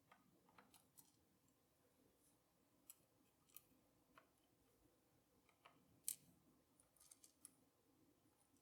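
Near silence with faint, scattered small clicks of padlock parts being handled, about a dozen in all, the loudest about six seconds in.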